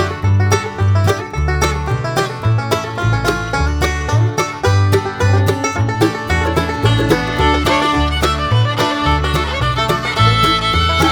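Background instrumental music in a bluegrass style, with banjo and fiddle over a steady beat.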